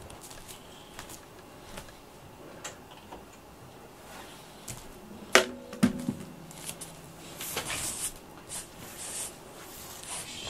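Scattered light clicks and knocks of household objects being handled in a small room. There is a sharp knock about five seconds in, then a duller thump with a brief low ring.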